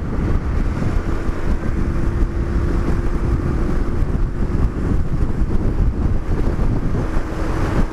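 Wind buffeting the microphone of a riding motorcycle, with the engine running underneath. A steady hum comes in about a second in, fades a few seconds later, and returns near the end.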